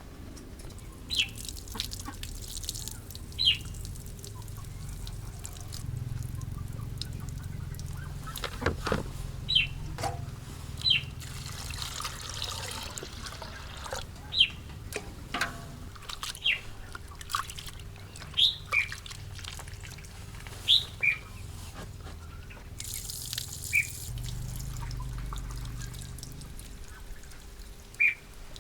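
Short, high bird chirps repeating every second or two over a steady low rumble.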